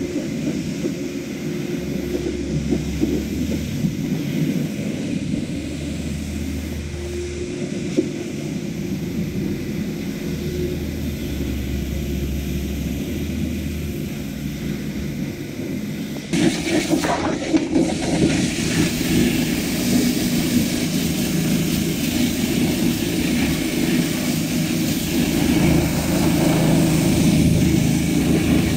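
Pressure washer jet spraying a pickup truck's bodywork and wheel arch: a steady hiss of water over a low pump hum that comes and goes. About sixteen seconds in the spray becomes louder and harsher and stays so.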